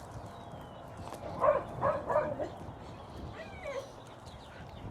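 Other dogs barking: a short run of three or four barks about a second and a half in, then fainter, higher yelps near the four-second mark.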